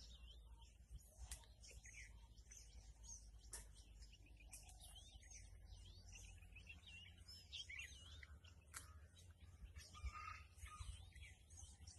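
Faint bird calls: many short chirps that rise and fall, scattered throughout, over a steady low rumble, with a few faint sharp clicks.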